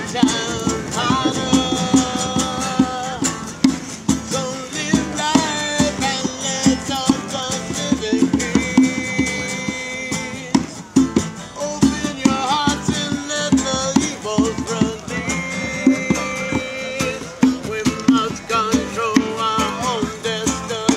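Live music: a guitar playing with sustained, bending melody notes over a steady hand-played beat on a cajon.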